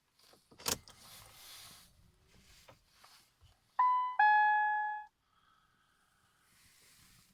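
A click and some rustling, then the car's two-note dashboard chime, a short higher note followed by a longer lower one, as the ignition is switched on ahead of a cold start.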